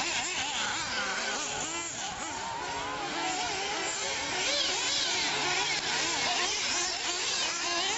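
Several radio-controlled off-road racing cars buzzing around a dirt track, their small engines revving up and down in overlapping high-pitched whines.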